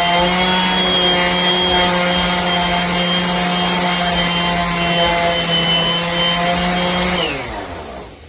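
Electric random orbital sander running at a steady speed with the sanding disc rubbing against the work. About seven seconds in it is switched off, and the motor winds down with a falling pitch.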